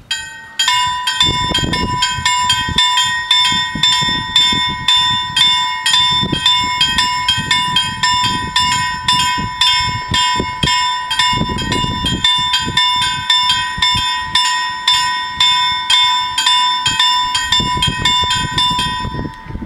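The two electric warning bells of a Swedish railway level crossing ring with rapid, evenly spaced strokes as the crossing activates. They stop near the end, once the barriers are down.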